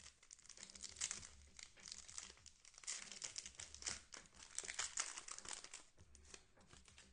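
Plastic trading-card pack wrapper being torn open and crinkled in the hands, an irregular run of crackles.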